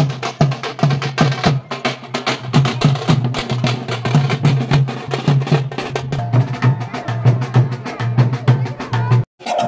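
Folk procession drumming: a group of frame drums and barrel drums beaten with sticks in a fast, dense rhythm. It breaks off suddenly near the end.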